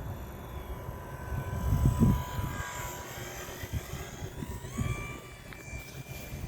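Small RC airplane's motor whining as it flies, its pitch stepping up shortly before the end as the throttle opens. Wind rumbles on the microphone, with a strong gust about two seconds in.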